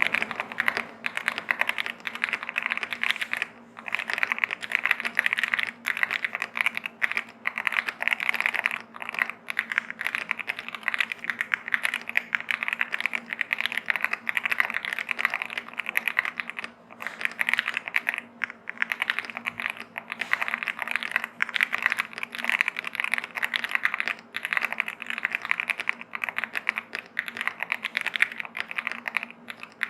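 Fast typing on a V65 mechanical keyboard with stock Akko Cream Yellow V3 linear switches and PBT dye-sub keycaps, dampened with Poron plate and switch foam and a two-layer tape mod. A dense, continuous run of keystrokes with a few short pauses, picked up by an Android phone microphone.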